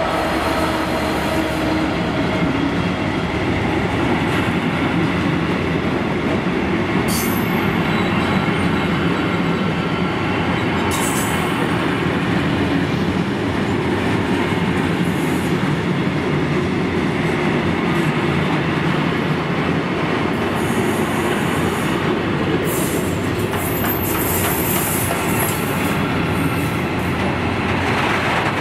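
A long freight train of bogie wagons rolling past at close range behind a GB Railfreight Class 66 diesel locomotive, with steady wheel-on-rail noise and a few brief high wheel squeals. The locomotive's engine note dies away in the first couple of seconds as it moves on, leaving the wagons.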